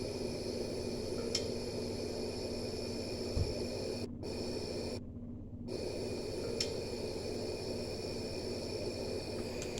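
Replayed woodland field recording: a steady hiss and hum with two brief high ticks and a short low thump.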